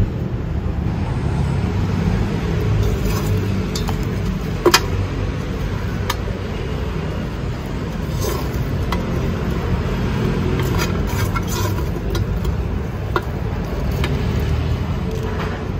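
Coconut husk chips and a small plastic nursery pot handled while a seedling is repotted, with a few sharp clicks, over a steady low rumble.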